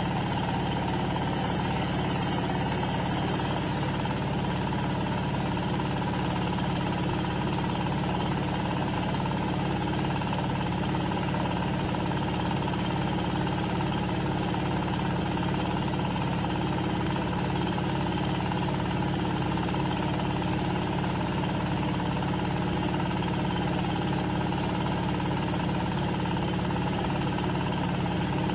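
Silage baling machine running steadily, a constant mechanical hum that does not change in pace or loudness.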